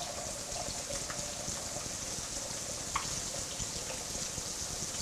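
Chicken pieces frying in hot oil in a pan: a steady sizzle with an occasional small pop.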